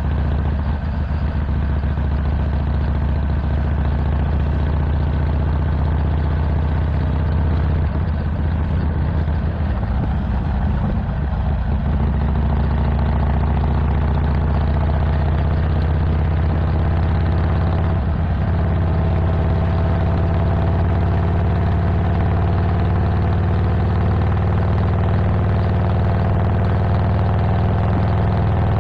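Harley-Davidson Iron 1200 Sportster's air-cooled V-twin, with a 2-into-1 Cobra El Diablo exhaust, idling steadily.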